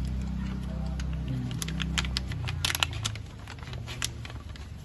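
Plastic sachet of windscreen-washer concentrate crinkling as it is squeezed out and folded by hand. There is a quick run of crackles and clicks through the middle, thickest a little before 3 seconds in.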